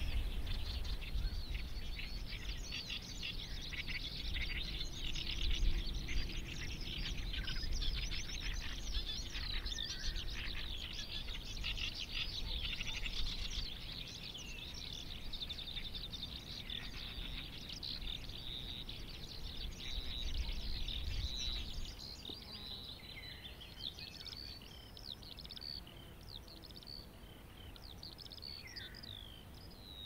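Lark singing: a long, unbroken stream of fast, high twittering and warbling notes that thins to scattered notes about two-thirds of the way through. A low rumble underneath stops at the same point.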